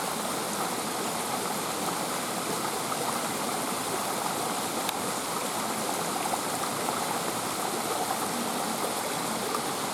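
Fast-flowing stream rushing over rocks in a steady, even wash of water noise.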